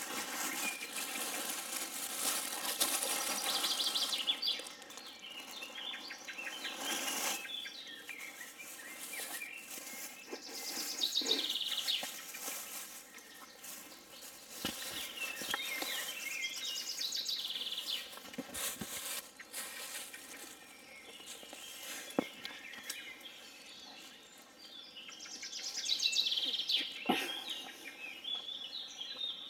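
A songbird singing a short, falling trilled phrase that it repeats every several seconds.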